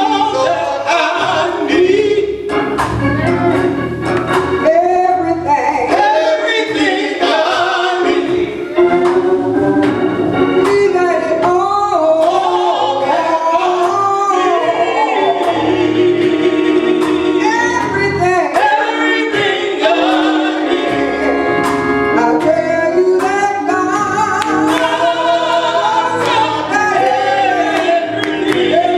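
A church praise team singing a gospel song with instrumental accompaniment.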